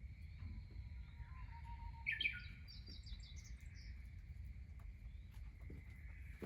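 A bird calling outdoors: a short loud burst of chirps about two seconds in, then a quick run of higher notes, over a steady faint high hum and low rumble.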